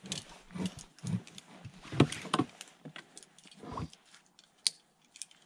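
Metal carabiners and climbing hardware clicking and clinking as they are clipped and handled, with duller knocks mixed in during the first few seconds, then a few sharp ticks.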